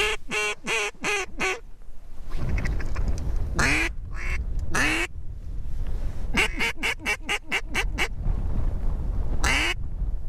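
Mallard-style quacking: a quick descending string of about six quacks, two long single quacks, a fast run of about ten quacks and one more long quack. Strong wind rumbles on the microphone underneath.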